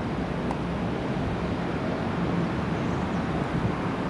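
Distant Boeing 737-800 jet on landing approach, its CFM56-7B turbofans heard as a steady low rumble, with wind noise on the microphone.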